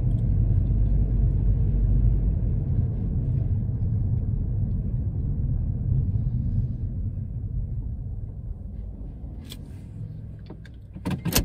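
Low rumble of a 2021 Toyota Corolla rolling, heard inside the cabin, fading away over the second half as the car slows to a stop; a sharp click near the end.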